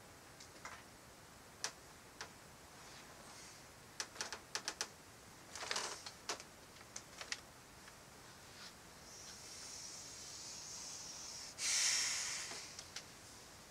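Sharp knocks and clicks come at random, uneven intervals: the unexplained bedroom knocking sounds, some in quick clusters. Near the end a rustling hiss builds and swells into one loud burst.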